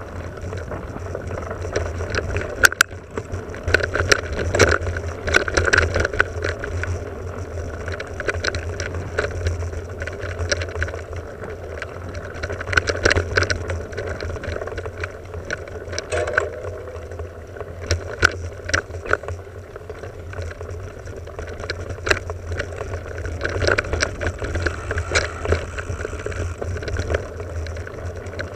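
Full-suspension mountain bike (Cube AMS 120) ridden over a bumpy dirt singletrack, heard from a camera mounted on the rider or bike: a steady rush of tyre and wind noise with frequent clicks and rattles as it jolts over bumps.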